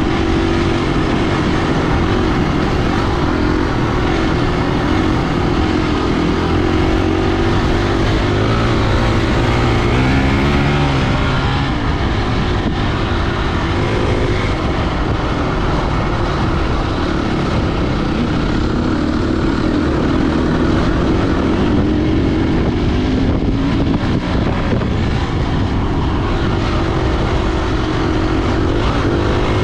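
Engine running steadily under way, its pitch drifting up and down, over heavy wind and rushing noise.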